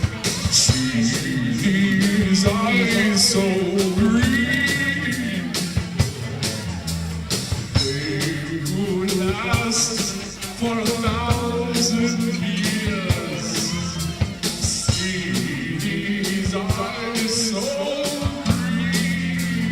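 A rock and roll band playing live, with a steady drum beat over the bass.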